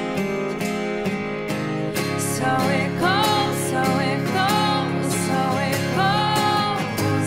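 Background music: strummed acoustic guitar with a steady rhythm, joined by a singing voice about two seconds in.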